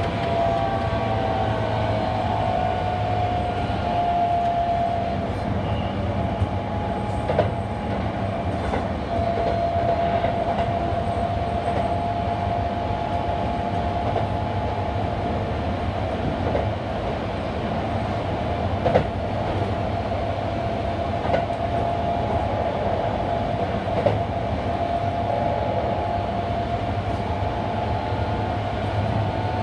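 Keihan 7200 series electric train running at speed, heard from inside the car. A steady rumble of wheels on rail runs under a steady high whine, with occasional knocks from rail joints; the sharpest comes about 19 seconds in.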